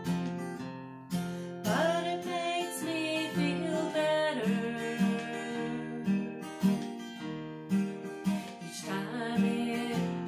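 Acoustic guitar strummed in a steady rhythm, accompanying a woman singing a country song; her voice comes in for a line about two seconds in and again near the end.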